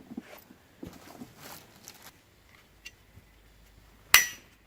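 Faint rustling and small clicks of handling, then one sharp knock with a short ringing tone about four seconds in.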